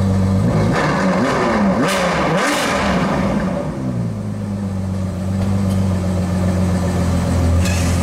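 A petrol car engine idling, revved a few times about a second in, its pitch climbing and falling, then settling back to a steady idle.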